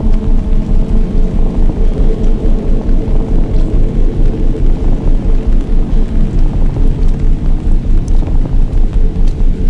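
A loud, low droning rumble with a few steady tones, throbbing evenly about three times a second, like an eerie ambient soundtrack drone.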